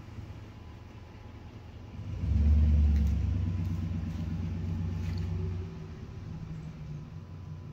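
A motor vehicle's engine running, growing sharply louder about two seconds in, holding there, then falling back just before six seconds as it passes or moves off.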